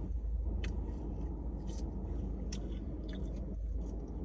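A person chewing food with the mouth, several short wet clicks and smacks, over a steady low rumble.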